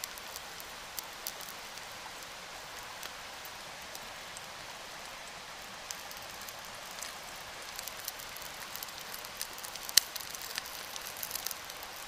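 Pancake batter sizzling in a titanium non-stick frying pan over a small wood-burning stove, a steady hiss with scattered pops and crackles. The pops grow more frequent near the end, and there is one sharp pop about ten seconds in.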